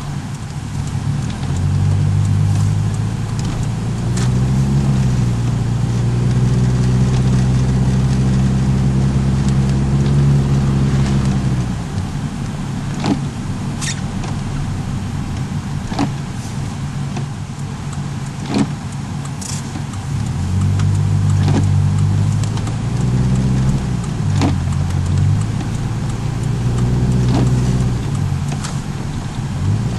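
Car engine running while driving: its note climbs as the car speeds up, holds steady, drops away about twelve seconds in, then climbs again from about twenty seconds in. A few sharp knocks come in the quieter stretch between.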